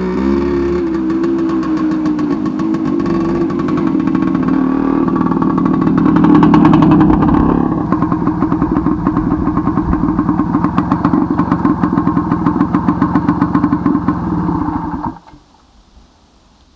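Soviet Tula off-road motorcycle's two-stroke single-cylinder engine running. It revs up around six to seven seconds in, then runs with an even pulsing beat. About fifteen seconds in it is switched off and stops abruptly.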